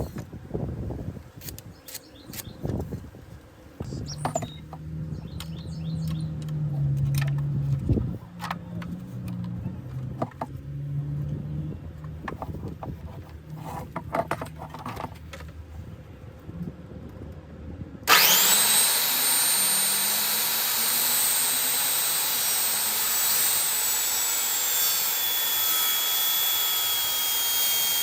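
Scattered knocks and clicks of handling the saw and lumber. About two-thirds of the way in, a handheld circular saw starts with a quickly rising whine and runs loudly and steadily. Its pitch sags a little later on, as it does when the blade is under load in the wood.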